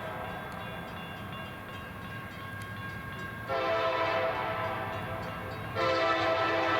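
Lead locomotive's multi-chime air horn sounding two blasts: one starts about halfway through, and a second, louder blast begins near the end. Under the horn runs the low rumble of the diesel locomotives pulling hard.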